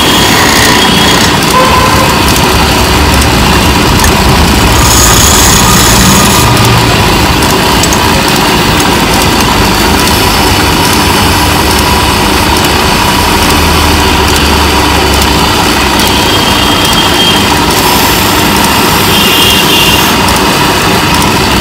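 Wood lathe running steadily and loudly while a hand chisel, braced on the tool rest, cuts into a spinning wooden leg.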